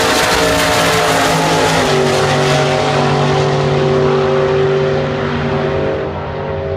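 Car engine running hard at high, fairly steady revs, loud, with a rushing noise over it; the pitch steps down slightly about two seconds in and the sound fades near the end.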